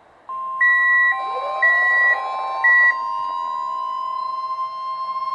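Emergency Alert System alert tones from NOAA Weather Radio receivers. A steady high tone starts about a third of a second in and holds. For the first few seconds a louder beep alternates between two pitches over it, three times.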